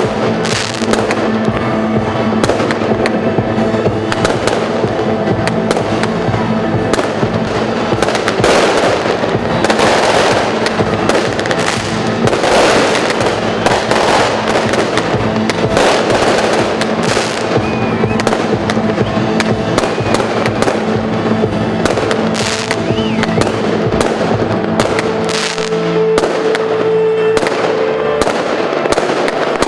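Fireworks going off in quick succession, a dense, continuous run of bangs and crackles from aerial shells and ground-level pyrotechnics, with music playing underneath.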